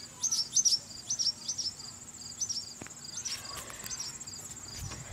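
Birds making repeated short, high, downward-sliding chirps, alarm calls from birds defending their nest, over a steady high-pitched insect trill.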